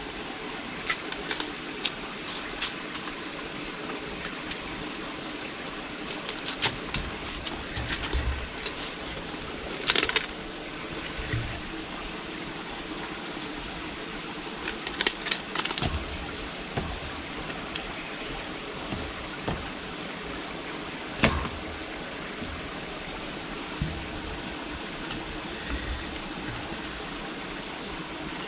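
Kittens playing in and around plastic pipes on a concrete floor: scattered knocks, scrapes and clicks as a pipe is rolled and bumped, with short rattling bursts and one sharp knock about two-thirds of the way through, over a steady background hiss.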